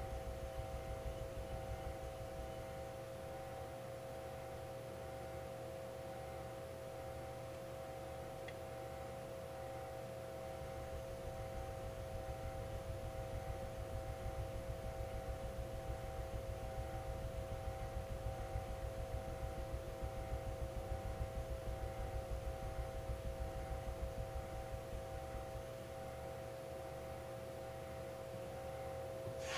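Carbon-steel (White #1) yanagiba blade stroked back and forth on a wet Japanese waterstone: a soft, rhythmic scraping that pulses most plainly in the middle stretch. A steady electrical hum runs underneath.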